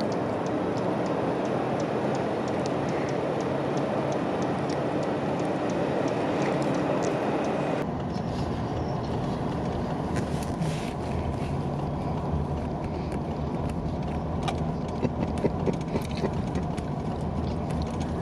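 Vehicle driving noise: a steady rush of road and engine sound. About eight seconds in it changes abruptly to a deeper rumble with scattered sharp clicks and crackles.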